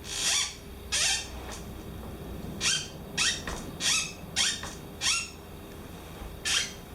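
Steelcase Gesture office chair squeaking as it is reclined: about eight short, high squeaks at irregular intervals, some falling in pitch. An abnormal noise from the chair's recline mechanism.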